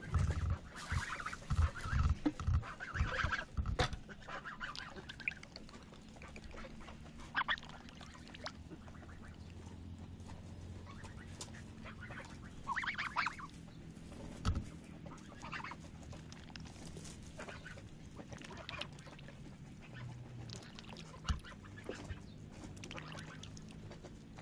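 Domestic geese honking now and then, a few short calls spaced several seconds apart. A run of dull knocks and bumps in the first few seconds.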